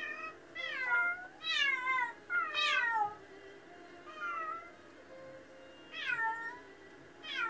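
A domestic cat meowing repeatedly while left home alone, about six meows that each fall in pitch, with a gap of a second or two between them. These are lonely crying calls.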